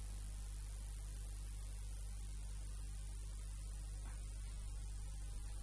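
Steady electrical mains hum with background hiss, a low constant drone that does not change.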